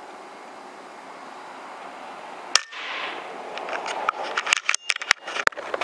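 Air rifle shot: a single sharp crack about halfway through, then a short hiss and a rapid, irregular clatter of clicks and knocks over the next few seconds.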